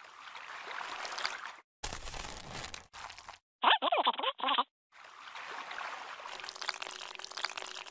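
Wet splashing and trickling sound effects in several short stretches, broken by brief gaps. About three and a half seconds in there is a short squeaky, sped-up cartoon voice. In the last few seconds the watery hiss turns denser and crackly.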